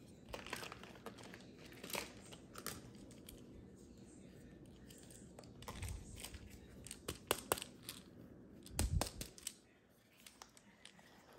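Small hard plastic toy figures clicking and tapping as they are picked up and set down on a stone countertop, in short irregular clusters, with a couple of low thuds.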